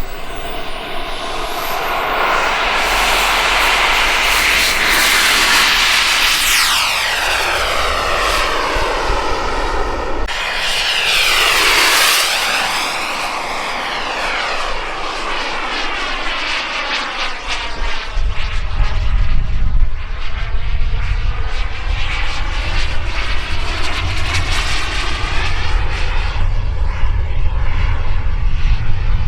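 Small gas-turbine engine of a Starfire radio-controlled jet making several high-speed passes, its whooshing whine sweeping up and down in pitch as it goes by. A low rumble joins in about two-thirds of the way through.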